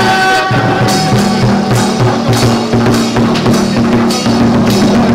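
Large Chinese barrel drum beaten with two sticks in a fast, steady rhythm, with sharper strikes landing about twice a second on top: festival procession percussion.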